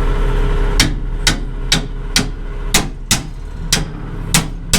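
Repeated hammer-like blows on a semi-trailer's sliding-tandem locking-pin handle, about nine sharp knocks at roughly two a second starting about a second in, driving a sticking handle home so the pins lock.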